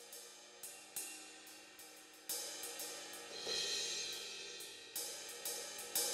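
Soft background music: held tones with cymbal and hi-hat strikes every second or so.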